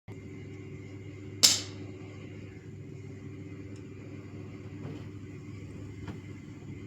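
One sharp knock of a carving tool against wood about a second and a half in, ringing out briefly, then two faint taps later, over a steady low hum.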